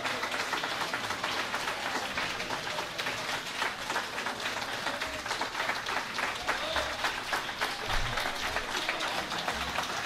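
Audience applauding steadily, a dense patter of many hands clapping, with some crowd talk underneath.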